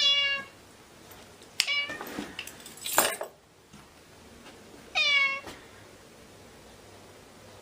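A cat meowing three times, each meow sliding down in pitch, the middle one shorter. About three seconds in, a brief scuffling noise ends in a sharp knock.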